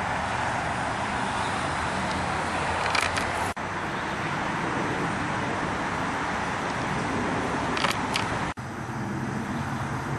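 Steady outdoor background rush. Brief handling clicks come twice, each just before the recording cuts abruptly.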